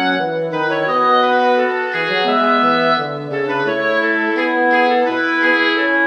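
Background music: sustained organ- or wind-like chords and melody notes changing about every half second, with no voice.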